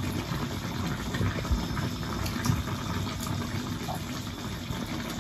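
Chicken broth bubbling steadily in a pot on a wood-fired clay stove, with a few light clicks.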